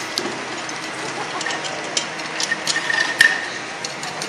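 Scattered metal clinks and knocks of hand tools and jeep parts being handled, with one sharper clank about three seconds in, over steady background noise.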